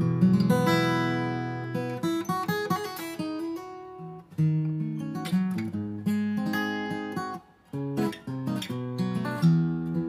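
Acoustic guitar playing an instrumental intro, strummed chords mixed with picked notes, with a brief break about three-quarters of the way through.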